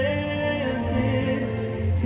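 Fireworks-show soundtrack music with long, held melodic notes.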